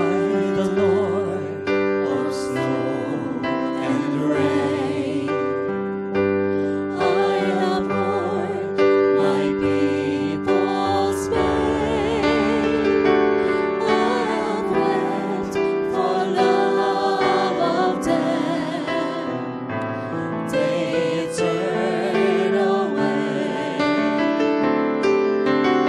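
Christian worship song: a choir of voices singing over piano and keyboard.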